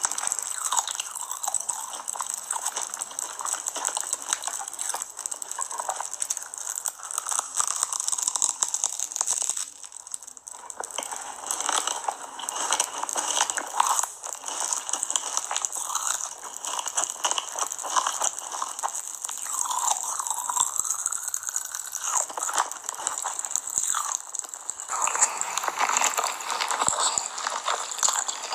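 Close-up crunching and chewing of a giant crispy rice treat: dense crackly bites and chews, one after another. Near the end the sound changes to the wetter chewing of cheesy noodles.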